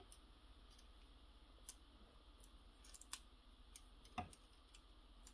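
Near silence broken by a handful of faint, scattered clicks of the Kotobukiya HMM Zoids Liger Zero Empire plastic model kit's parts and joints being moved by hand. The clearest click comes about four seconds in.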